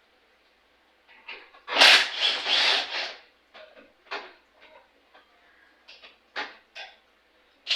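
Hands working on a mower engine with tools and parts: a loud scraping rattle about two seconds in, then a string of short knocks and clicks.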